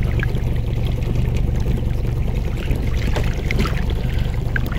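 Water splashing and trickling as a small snook held in the river at the boat's side thrashes just before it is released, over a steady low hum.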